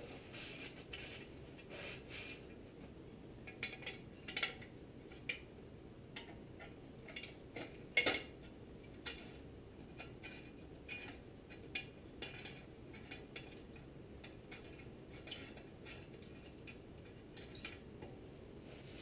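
Scattered small metal clinks and taps as a Tecumseh HM80 engine's muffler and its anti-seize-coated bolts are handled and fitted onto the exhaust port, the loudest clink about eight seconds in.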